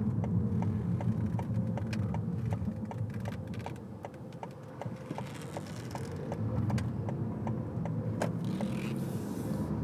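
Steady low rumble of a vehicle cabin, with a regular light ticking of about three ticks a second.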